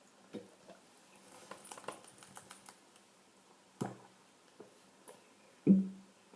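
Scattered small clicks and a stretch of faint crackling, then a knock about four seconds in and a louder, short low thump near the end.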